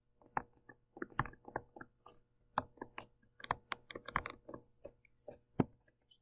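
Stylus tapping and scratching on a tablet screen during handwriting: an irregular run of short, faint clicks.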